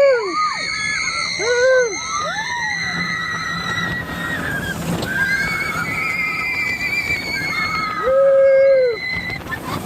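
Riders screaming on the Silver Bullet inverted roller coaster: several short rising-and-falling screams at first, then long high held screams and a lower one about eight seconds in, over the steady rumble of the moving train.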